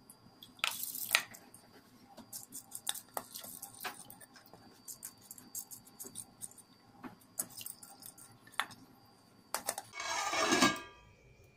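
Washed urad dal tipped from a steel bowl into a steel pot of water, with splashes, drips and light clinks of metal. About ten seconds in, a metal lid is set onto the steel pot with a scraping rattle and a brief ring.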